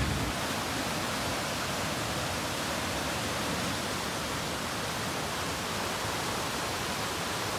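Swollen, muddy floodwater of a river rushing past in a steady, even rush of water.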